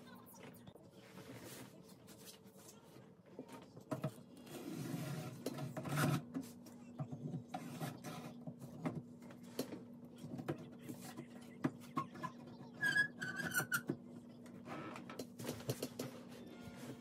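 Handling noise as a painting canvas is set against a tabletop easel: scattered knocks and clicks, with a few seconds of rubbing and rustling about four seconds in and a short squeak near the end, over a faint steady hum.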